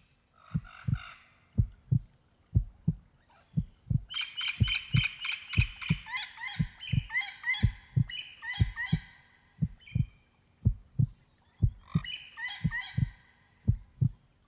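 A heartbeat sound effect: low double thumps, about one a second. A bird's rapid run of repeated chirping notes joins about four seconds in and comes back briefly near the end.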